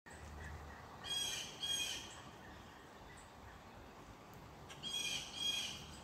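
Crow cawing: two caws in quick succession about a second in, then another pair of caws near the end.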